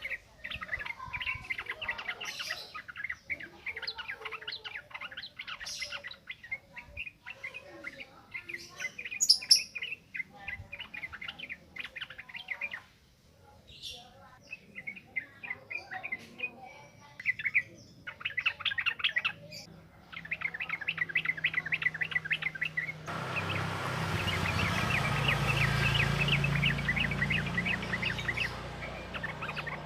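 Sooty-headed bulbul (trucukan) singing a fast, continuous chattering song of quick repeated notes, with a short break near the middle. About three-quarters of the way in, a steady hiss and a low hum rise under the song.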